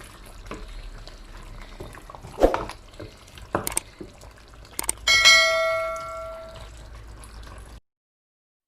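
Metal cookware being handled: a few sharp knocks, then about five seconds in one loud clang that rings on for over a second before the sound cuts off suddenly.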